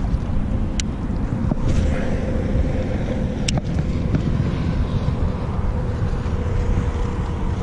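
Small boat motor running steadily with a faint steady whine, moving the aluminium boat, with wind on the microphone. Two sharp clicks come about a second in and about three and a half seconds in.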